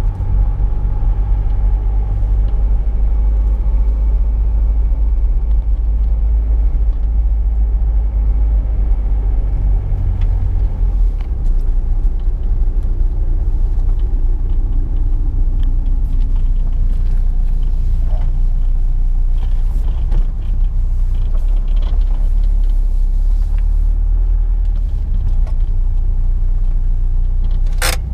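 Cabin sound of a 1998 VW Jetta TDI's 1.9 L turbodiesel four-cylinder running with a steady low rumble. It settles from around 1,400 rpm down to idle, about 900 rpm with the throttle closed. A sharp click comes just before the end.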